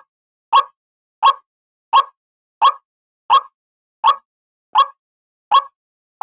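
White-breasted waterhen's 'ruak' call played as a trapping lure: a short croaking note repeated evenly, about every 0.7 seconds, around nine times.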